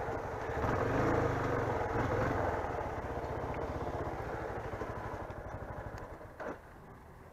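Motorcycle engine running steadily, growing fainter over several seconds, with one short knock near the end.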